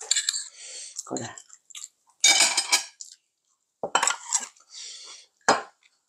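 A metal spoon and chopsticks clinking and scraping against ceramic bowls and plates in a series of short clatters, the loudest about two seconds in.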